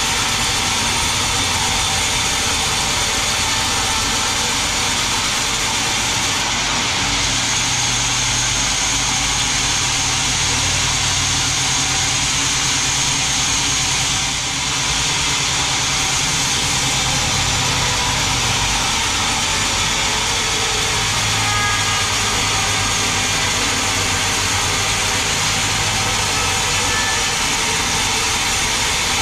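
Large sawmill band saw running and cutting lengthwise through a big mahogany log: a steady motor hum under the continuous hiss of the blade in the wood. The sound dips briefly about halfway through.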